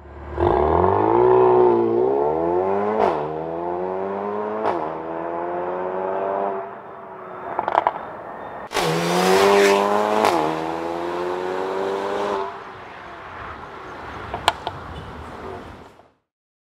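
Mercedes-AMG A35's M260 2.0-litre turbocharged four-cylinder, breathing through a Stone Exhaust valved cat-back, pulling hard with the revs climbing and dropping sharply at each upshift. Between the pulls the revs fall off, with a few sharp pops from the exhaust.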